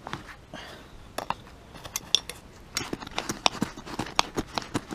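Hand digging in soil and roots with a metal trowel: irregular scrapes and clinks, coming thicker and louder about three seconds in.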